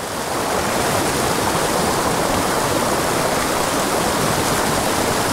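Small mountain pocket-water creek rushing over rocks, a steady, unbroken rush of water.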